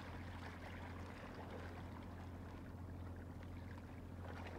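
Faint sea water lapping and washing at the shoreline rocks, over a steady low hum.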